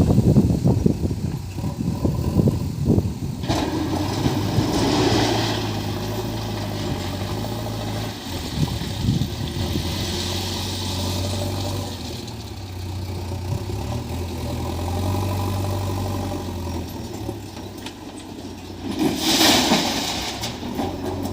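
JCB 3DX backhoe loader's diesel engine running and working, its pitch shifting as the loader moves, while it loads railway ballast stone into a tipper truck. A rough rumble early on and a loud rushing crash near the end, the ballast pouring from the bucket into the truck bed.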